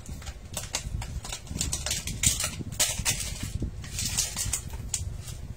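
Irregular clicks, taps and clinks of hand work on metal parts, with several brighter scrapes in the middle, over a steady low rumble.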